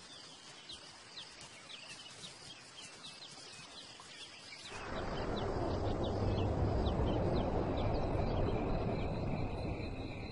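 Savanna ambience at dusk: a run of short, rising chirps, several a second. About halfway through, a broad rushing noise swells in, with a steady high insect trill.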